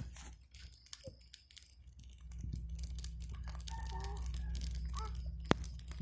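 Wood fire crackling with scattered small pops and one sharp louder pop about five and a half seconds in, over a steady low rush that builds from about two seconds in.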